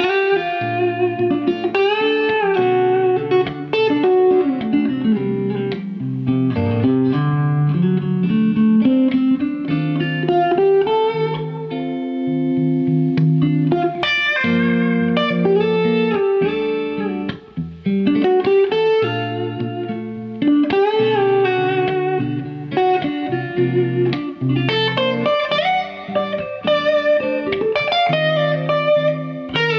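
Electric guitar, a sunburst Stratocaster-style solid-body, playing a continuous improvised lead melody over sustained lower chord tones. The lines switch between D major and D minor over the chord changes.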